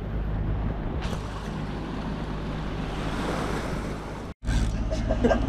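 Sailboat's inboard engine running steadily under motor, a low hum under wind and the rush of water past the hull. The sound drops out for an instant about four seconds in, then the engine hum resumes.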